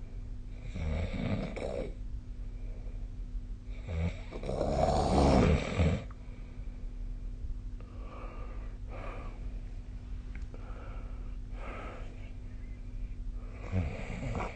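A sleeping person snoring, one snore every few seconds. The loudest is a long snore about four seconds in, and the later ones are fainter.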